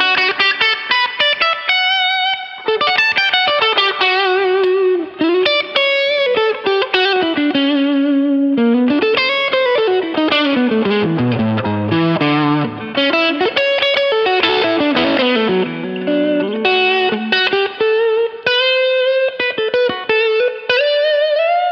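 Electric guitar through a Quilter Aviator Mach 3 combo amp, playing an overdriven single-note lead with string bends and vibrato. It runs down in pitch about halfway through and closes on long held notes.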